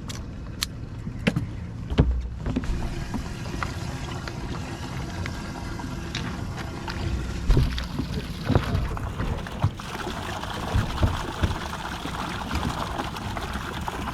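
Steady low rumble of wind or water around a bass boat, with scattered knocks and clicks of gear handled on deck.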